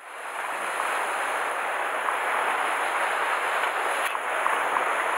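Sea surf washing and foaming against the rocks below, a steady rushing noise.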